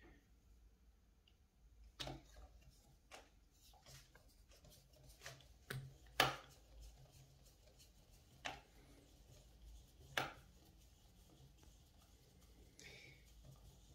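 Scattered light clicks and knocks, about seven at irregular intervals, from a screwdriver working a screw and a plastic RC car chassis being handled while the motor mount is tightened.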